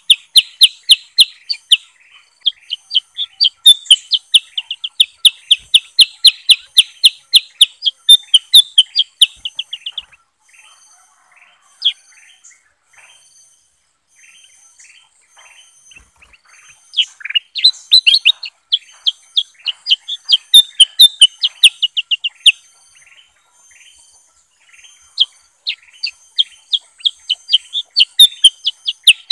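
Kutilang emas (ruby-throated bulbul) and kutilang sutra bulbuls calling in fast runs of sharp, repeated chirps, about three or four a second. The chirps drop to softer, scattered calls about a third of the way in, then the loud runs return.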